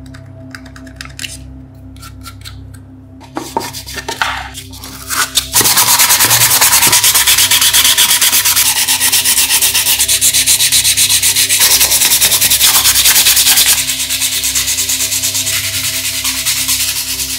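Sanding: a few light clicks and knocks, then about five and a half seconds in a loud, steady scrubbing of rapid even strokes that eases a little near the end.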